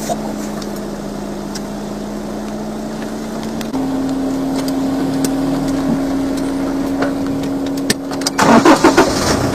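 A vehicle engine running steadily, its hum stepping up in pitch about four seconds in. Near the end a louder, rough burst of noise comes over it.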